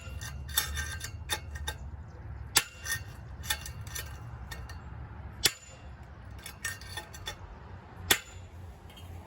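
Irregular metal-on-metal hammer blows, about a dozen with a short ring after each, on a steel punch made from a broken socket handle. They are driving the old bearings out of a garden-cart wheel hub.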